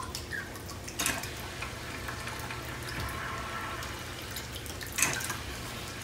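Steady trickle of aquarium filter water over a constant low hum. Two brief knocks come about a second in and near the end, the second one louder.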